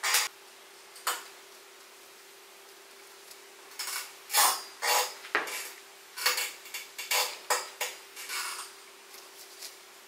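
Ceramic painting dishes clinking as a brush and bowls are handled: two single knocks, then a busier run of clinks and clatter from about four seconds in.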